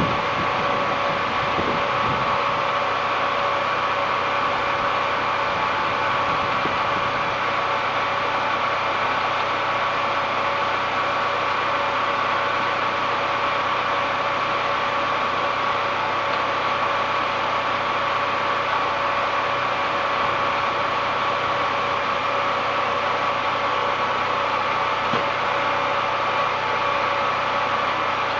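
Small portable generator engine running at a steady speed, a constant hum with a steady whine over it.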